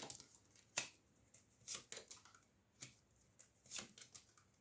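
Tarot cards being handled on a table: a few scattered soft clicks and rustles, about one a second.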